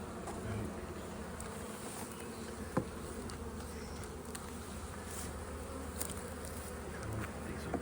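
Honeybees buzzing steadily around an open hive, with one sharp knock about three seconds in.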